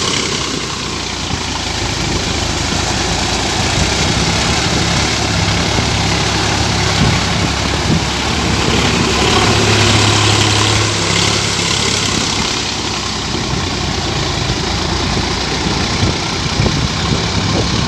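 Sonalika tractor's diesel engine running steadily with a low hum, under a lot of mechanical noise.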